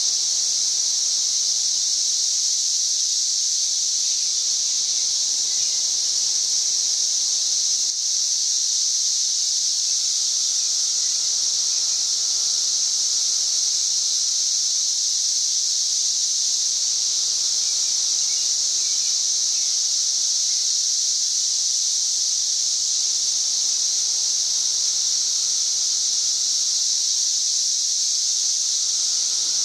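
A chorus of cicadas singing as one steady, high-pitched, unbroken drone. It is very loud, around 90 decibels.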